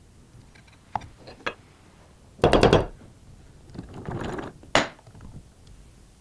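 Workshop handling noises of the pliers and tools: a few light knocks, a loud rattling clatter of rapid impacts about two and a half seconds in, a scrape, then a sharp click.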